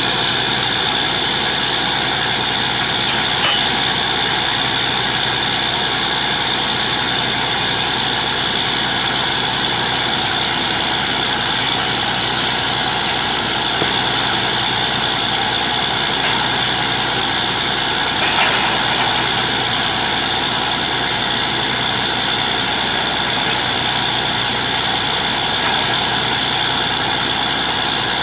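Truck-mounted borewell drilling rig running steadily, its engine and compressor droning with a strong high hiss; a brief knock about three seconds in and another near eighteen seconds.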